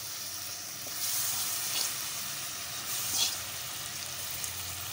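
Sliced onions and freshly added tomato chunks sizzling in hot oil in a metal pot, stirred with a wooden spoon. The sizzle swells a little twice.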